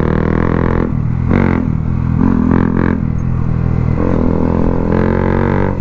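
Motorcycle with an aftermarket Akrapovič slip-on exhaust, its dB killer removed, running loud while being ridden. The engine note shifts with the throttle about a second in and again about four seconds in.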